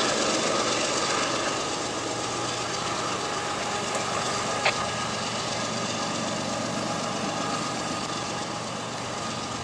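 GE ES44AH diesel locomotive's V12 engine running hard as the end-of-train distributed-power unit of a loaded coal train goes by, the sound slowly fading as it draws away. A single sharp click comes about halfway through.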